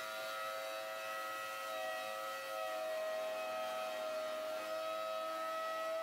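Craftex CX125HC benchtop thickness planer's motor running with a steady high-pitched whine while a maple board feeds through, its pitch sagging slightly under the load of the cut.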